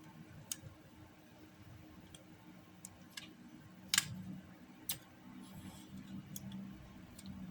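Scattered light clicks and taps of plastic parts and a screwdriver being handled while a laptop-stand cooling fan is screwed back together. The clicks come irregularly, about six in all, with the sharpest one about four seconds in.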